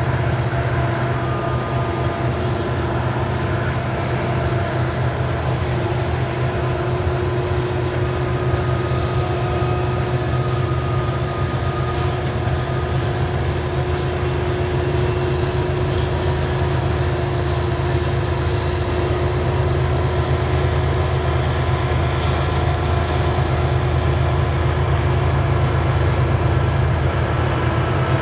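Coal train's hopper cars rolling past: a steady rumble of steel wheels on rail, with a few thin, steady whining tones above it.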